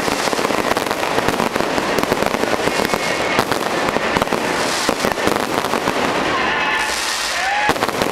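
Fireworks display: a dense, continuous run of rapid cracks and pops from bursting shells, with a few whistling tones near the end.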